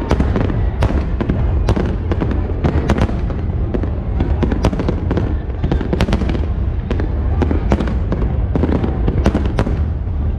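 Fireworks display: a dense run of sharp shell bursts and crackles, several every second, over a constant deep rumble of booms.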